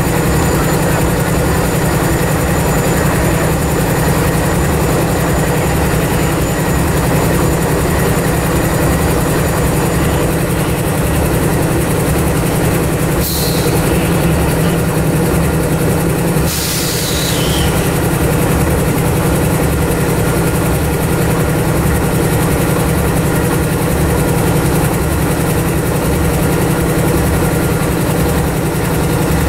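CSX AC44CW and MBTA GP40MC diesel locomotives idling with a steady, throbbing low rumble. Two brief hisses come about halfway through.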